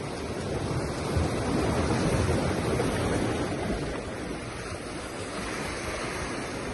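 Sea waves washing and breaking against shoreline rocks, swelling louder about a second in and easing off a couple of seconds later.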